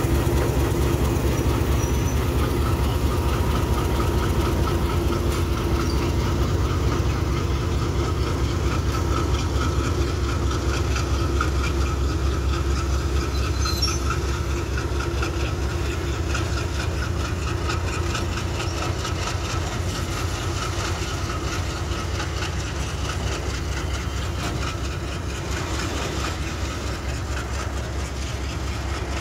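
Diesel-electric locomotive of Pakistan Railways' PHA-20 class running with a steady low engine rumble as it hauls a train of oil tank wagons past, the sound fading gradually as the locomotive moves away and the tank wagons roll by.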